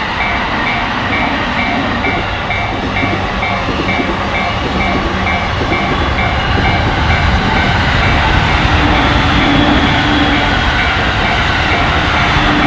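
Japanese railroad crossing warning bell clanging about twice a second over the rushing noise of a train running through the crossing, the train noise growing louder in the second half.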